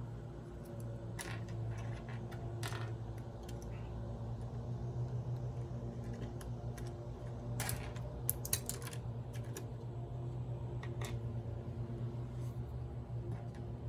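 Keys on a computer keyboard being pressed: scattered individual clicks, with a quick run of keystrokes around the middle, over a steady low hum.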